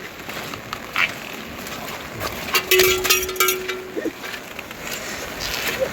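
Steady rain falling, with scattered drips and taps. About halfway through comes a loud, held call lasting about a second and a half.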